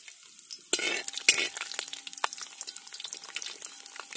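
Coconut pieces frying in hot coconut oil in a wide metal uruli, crackling and sizzling. The sizzle is faint at first and turns suddenly louder less than a second in, as a perforated metal skimmer stirs the pieces against the pan.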